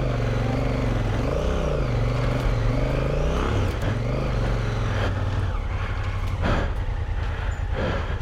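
Honda CRF1000L Africa Twin's parallel-twin engine pulling at low speed in a low gear, its note rising and falling with the throttle, then dropping away about five seconds in as the bike slows. A couple of brief knocks sound near the end.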